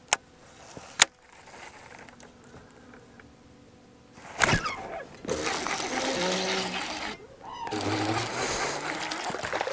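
Two sharp clicks in the first second. About four seconds in comes a sudden sweep as the hook is set. Then a fishing reel is cranked fast in two spells with a short break between them, reeling in a hooked bass.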